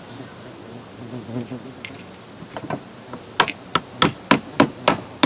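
Quick sharp taps, about three a second, starting a little over three seconds in: a tool knocking at the primer bulb of a Poulan Pro 42cc chainsaw to work the stubborn bulb loose.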